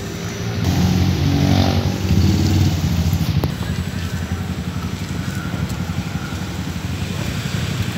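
Motorcycle engine running with a steady low hum, swelling louder for a couple of seconds about a second in.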